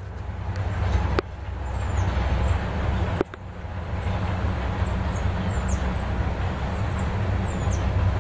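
Low rumble of a Chevrolet Tahoe's V8 engine as the SUV rolls slowly up a driveway and stops, with wind buffeting the microphone. Two sharp clicks come about one and three seconds in, and faint short high chirps sound above the rumble.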